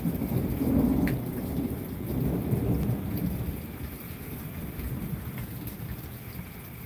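Thunder rolling, loudest in the first three seconds and then fading away, over a steady background hiss.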